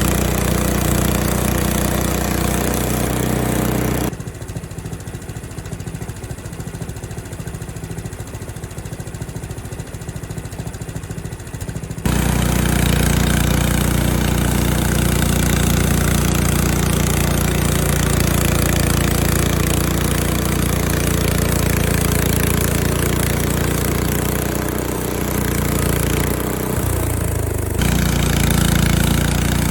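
Portable bandsaw sawmill's small gas engine running steadily. It drops abruptly to a quieter low pulsing for about eight seconds, then comes back just as abruptly. Near the end it briefly falls in pitch and picks up again.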